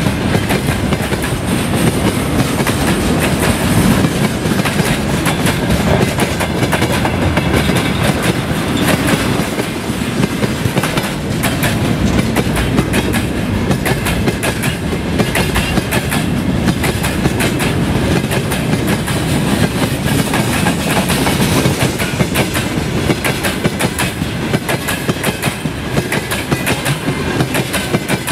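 Freight train wagons rolling past close by: a steady rumble with a continual clatter of wheels on the rails.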